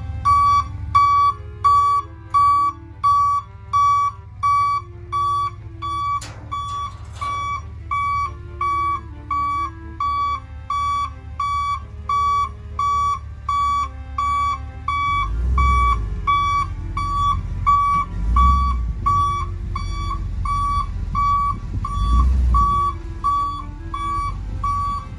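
Box truck's reversing alarm beeping steadily, about three beeps every two seconds, as the truck backs up, over the low rumble of its engine, which surges a few times near the end.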